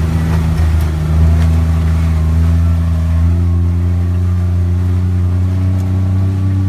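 A motor vehicle's engine running steadily at a low pitch, rising slightly in pitch about three seconds in.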